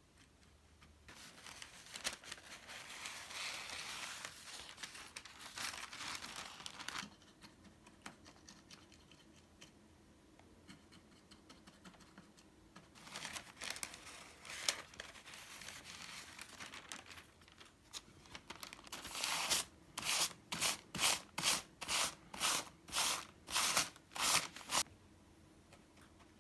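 Hand craftwork on a paper lantern: two stretches of rustling and rubbing, then about a dozen short, sharp rasping strokes, roughly two a second, near the end.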